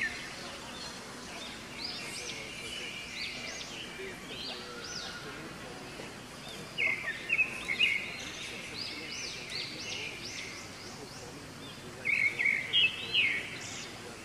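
Birds calling in the trees: bursts of rapid, loud, repeated chirps about seven and twelve seconds in, with softer arching whistled notes in between, over a steady outdoor background.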